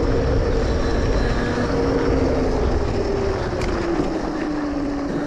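72-volt 5000-watt electric pit bike's motor whining as it rides, its single tone slowly dropping in pitch as the bike slows, over a steady rush of wind and tyre noise on packed snow.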